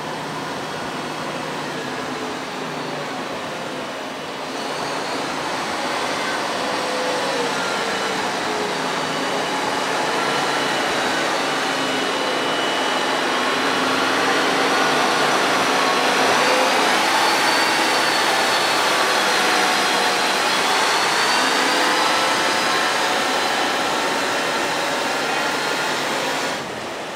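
A MAN 8x8 army truck's diesel engine running as the truck drives by, with a whining tone over the engine noise. It grows louder toward the middle and eases off near the end.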